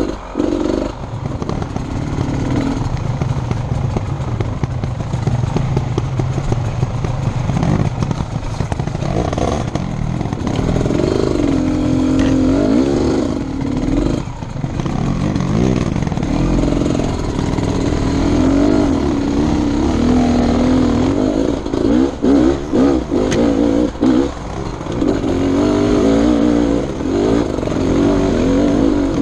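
Enduro motorcycle engine being ridden, its pitch repeatedly rising and falling with the throttle, with brief drops in level about halfway through and again later, and short clattering knocks.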